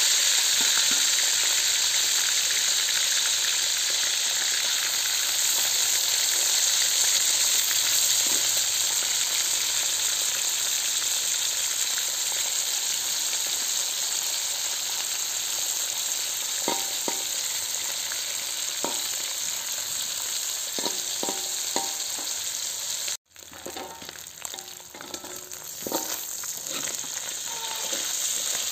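Salted jambal roti fish sizzling as it fries in hot oil in a wok, a steady hiss. From a little past halfway, a metal spatula clinks and scrapes against the wok as the pieces are turned. About 23 seconds in the sound cuts out for an instant, and the sizzle then runs on quieter.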